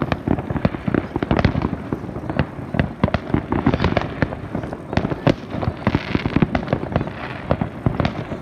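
Aerial fireworks display going off: a dense, unbroken run of bangs and pops, several a second, with a brief hiss about six seconds in.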